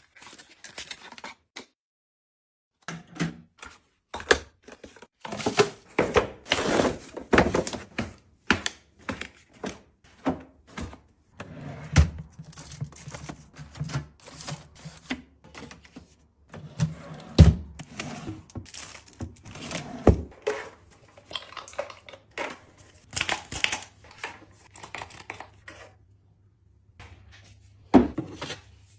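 Household supplies being handled and put away: an irregular run of taps, clunks and packaging rustles, with a few sharper knocks about 12, 17, 20 and 28 seconds in.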